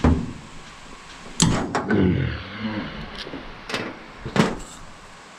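Hammer and pliers knocking and clanking on the steel parts of a New Idea 323 corn picker's husking bed while the cotter pins holding the finger wheels are worked out: about half a dozen separate sharp metal knocks at irregular intervals.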